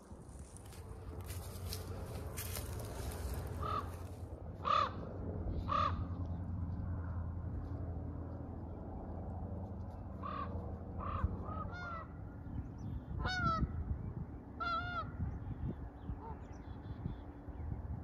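Canada goose honking repeatedly, about ten calls spread out from a few seconds in. Crunching footsteps through dry brush at the start.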